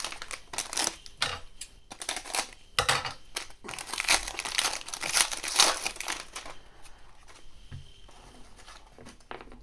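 Plastic wrapper of a trading-card pack crinkling and tearing as it is ripped open, in a run of rustles that dies away about seven seconds in.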